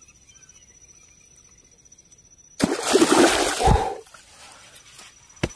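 A sudden loud splash at the water's surface about two and a half seconds in, lasting over a second: a chain pickerel striking at the lure. A short sharp click follows near the end.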